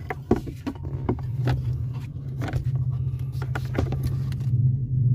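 Repeated clicks and knocks of a car's aluminium A/C evaporator core being handled and worked out of its housing under the dashboard, over a steady low hum.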